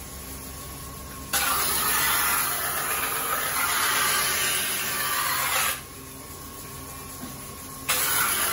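Knife grinding: a deba blade held flat in a wooden holder is pressed against a large rotating grinding wheel. It gives a loud, even grinding noise that starts abruptly about a second in, stops near the middle, and starts again near the end, over the steady hum of the wheel running.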